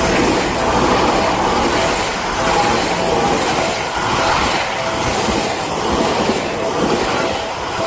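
Train passing close by at speed: a loud, steady rush of wheel and running noise on the rails.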